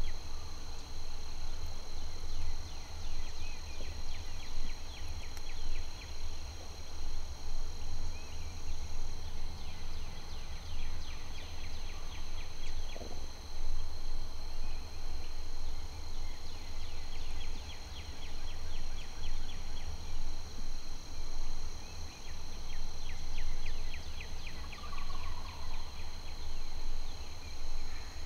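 Predawn night chorus: a steady high-pitched insect drone with repeated trains of rapid chirping trills, over low rumble on the microphone.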